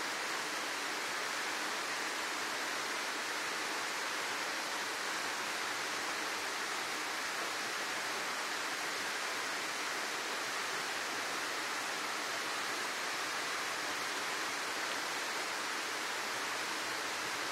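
Steady rush of a small jungle waterfall pouring into a rocky pool, an even hiss at constant level.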